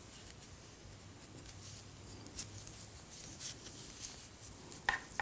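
Faint clicking and rustling of knitting needles working yarn: a scattering of light ticks, with a sharper click near the end.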